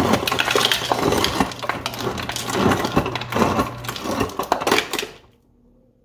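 Ice cubes dropping from the door ice dispenser of a Samsung RS27T5561SR side-by-side refrigerator and clattering into a plastic cup, with the dispenser's motor humming underneath. The clatter runs for about five seconds and then stops.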